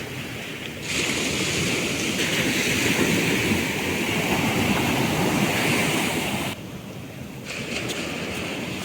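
Sea surf: a wave breaks and rushes in about a second in, holds for several seconds, falls away suddenly, and another begins to build near the end.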